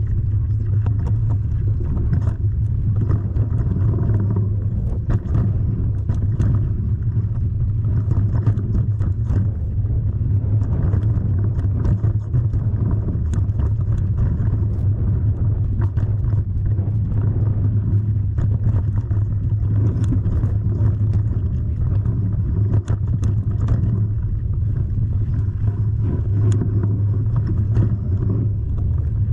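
Steady low rumble of a vehicle on the move, with scattered short knocks and rattles.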